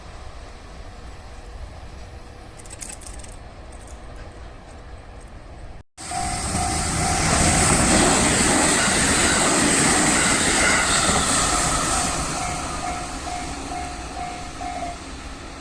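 A train passing over a level crossing: after a quieter stretch, a loud rush of wheel and rail noise comes in suddenly about six seconds in, holds for several seconds, then fades. Over it the crossing's warning bell rings in a steady repeating pattern.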